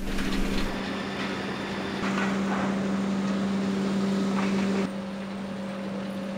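Conveyors and wood-waste handling machinery at a hog fuel system running with a steady hum. The background noise shifts abruptly a few times, about one, two and five seconds in.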